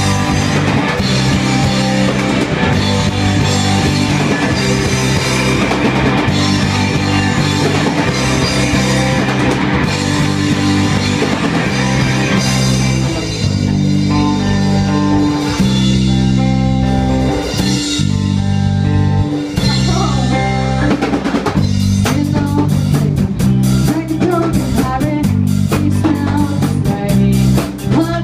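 Punk rock band playing live: electric guitars, bass guitar and a drum kit, loud and steady. The drums thin out for a stretch in the middle and come back in full for the last few seconds.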